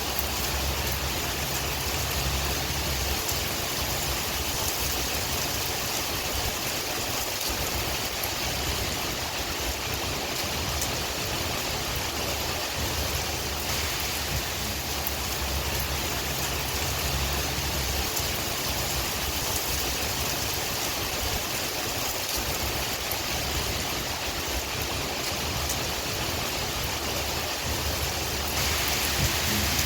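Steady rain with wind, a dense even hiss with faint patter and a low rumble underneath.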